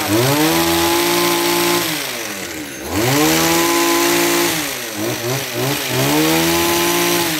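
Tanaka pole hedge trimmer's 22cc two-stroke engine revved to full throttle three times, each rev held for about a second and a half before dropping back, with the reciprocating cutter blades running.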